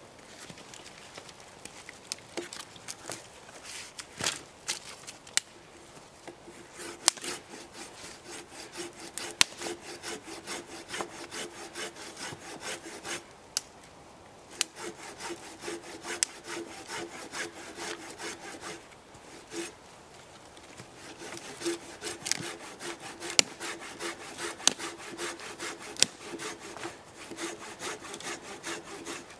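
Hand saw cutting through wood in quick back-and-forth strokes, stopping twice for a moment before starting again, with sharp clicks and cracks among the strokes.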